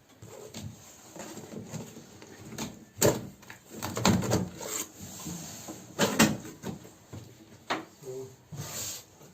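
Cardboard packaging and its contents being handled: rubbing and rustling with several sharp knocks, the loudest about three and six seconds in.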